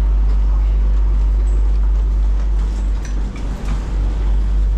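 Bangkok Airport Rail Link train running between stations, heard from inside the carriage as a steady deep rumble with faint rattles, dipping briefly about three seconds in.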